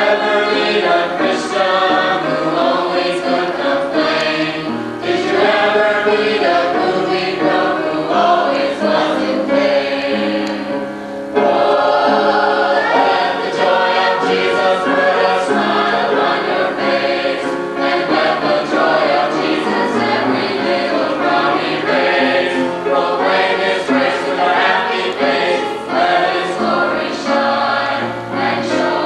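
A group of voices singing a Sunday school gospel song together, with the sound jumping suddenly louder about eleven seconds in.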